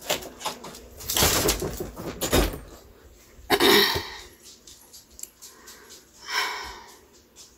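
Rustling handling noise for the first couple of seconds, then a woman's heavy, wheezy sighing breaths: a loud one about three and a half seconds in and a softer exhale near the end.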